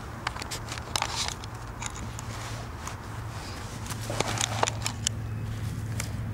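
Scattered sharp clicks, crackles and rustling from hands handling a homemade tripwire alarm's sensor and fishing line, over a steady low hum.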